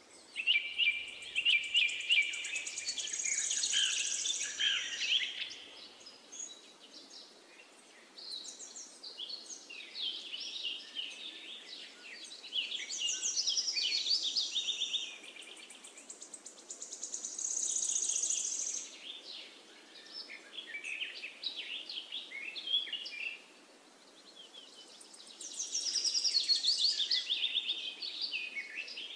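Birds singing: chirping, trilling phrases of a few seconds each, with short pauses between them, over a faint steady background.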